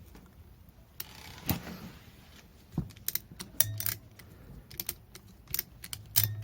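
Hand tools and small metal parts clicking and clinking, in scattered light knocks with a short rustling hiss about a second in. Near the end a few clinks ring briefly, like metal struck on metal.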